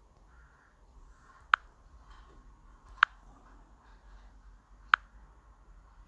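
Three short, sharp clicks about a second and a half apart: taps on a smartphone's touchscreen while paging through app menus, over a faint room hum.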